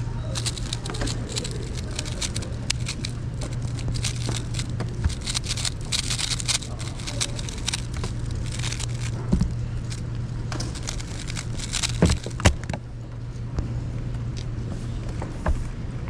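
X-Man Tornado V3 M speedcube turned rapidly: a fast, uneven run of plastic clicks and clacks with brief pauses. The clicks end about twelve seconds in with two louder knocks, as the cube is set down and the timer stopped.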